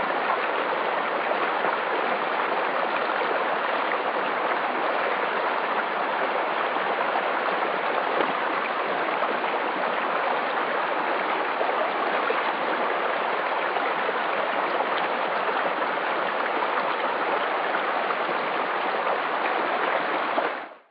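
Running water flowing steadily, like a stream, as an even rushing sound that cuts off abruptly at the very end.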